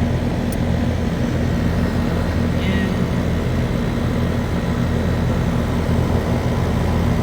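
Goodman air-conditioner condensing unit running: a steady low hum from the compressor and condenser fan. A brief faint high chirp sounds a little under three seconds in.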